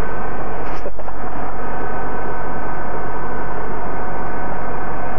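Steady droning noise of a moving vehicle heard from inside, over a constant low hum, with a brief knock about a second in.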